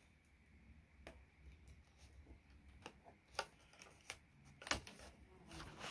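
Scissors snipping at stiff clear plastic packaging: faint, scattered sharp clicks, about six, spaced roughly a second apart, as the blades struggle to cut through.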